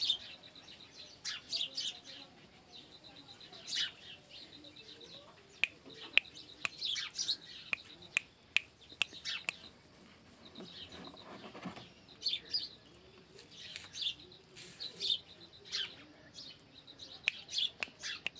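Small birds chirping in many short, high-pitched calls scattered irregularly, over a faint steady high tone.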